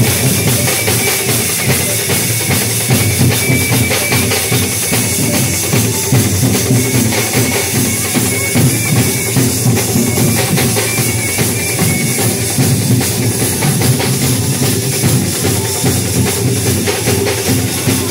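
A percussion band drumming loudly with a steady, driving beat, cymbals among the drums.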